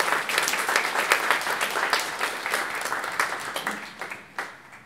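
Audience applauding, with the clapping tapering off toward the end.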